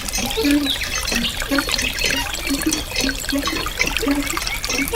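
Water running and trickling with irregular bubbling and gurgling.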